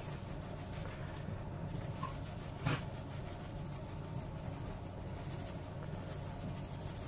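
Fine paydirt shaken through a wire-mesh kitchen strainer into a plastic gold pan: a soft, steady scratchy rustle of grit on the mesh, with one light tap about two and a half seconds in.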